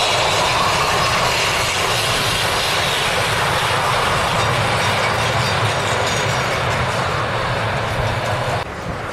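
Railway passenger coaches and a goods van rolling past on the track: a steady rush and rumble of wheels on rail that eases as the last car goes by, then cuts off sharply near the end.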